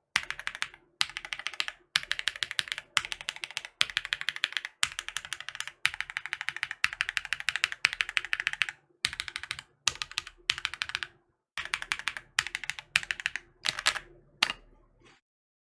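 Mechanical keyboard with stock Red Jacket 2.0 linear switches (nylon housings) being typed on in quick runs of keystrokes with brief pauses between them. The typing stops shortly before the end.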